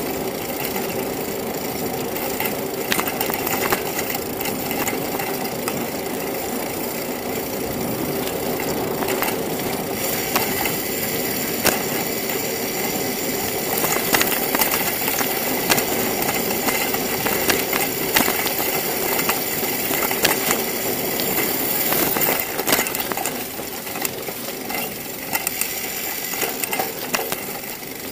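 Bicycle rolling over rough, patched asphalt, heard from a camera mounted on the bike: a steady rush of tyre and wind noise with frequent rattling clicks and knocks as it goes over bumps.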